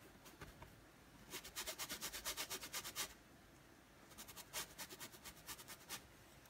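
Flat paintbrush scrubbing back and forth on canvas in quick strokes: two runs of about a second and a half each, with a short pause between.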